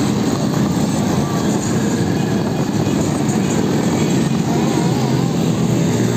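Motorcycle traffic: the steady drone of many motorbike engines and road noise from a moving ride among them, with a brief wavering tone about five seconds in.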